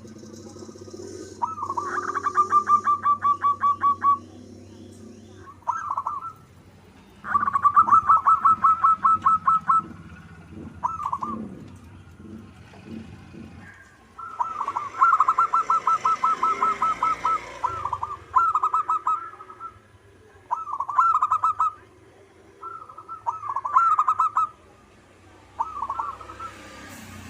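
Zebra dove (perkutut) cooing in full song: long phrases of rapid staccato coos about 2–3 s each, three times, with short one- or two-note coos in between. Faint high chirps of another bird run underneath.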